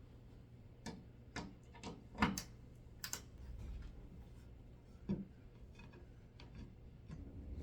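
A few scattered sharp clicks and light knocks, the loudest about two to three seconds in, over a faint low steady hum.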